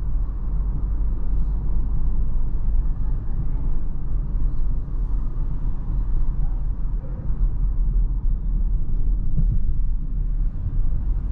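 CAOA Chery Tiggo 8 Founder's Edition SUV on the move: a steady low rumble of its 1.6 petrol engine and the road.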